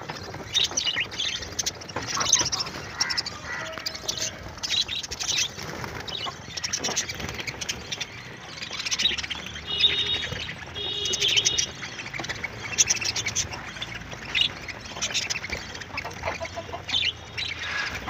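A crowded cage of budgerigars chattering, with many short chirps and warbles overlapping continuously.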